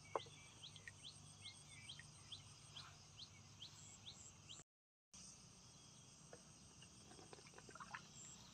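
Faint outdoor ambience: insects buzzing steadily, with a short rising chirp repeated about twice a second for the first half and a single click just after the start. The sound cuts out completely for about half a second midway, and a few faint clicks follow.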